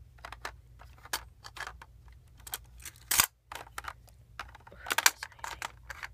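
Hard plastic toy playset pieces clicking and clattering as they are handled, with the orange lift platform moved up and down its clear tube. The clicks and taps come irregularly, with a sharp one about three seconds in.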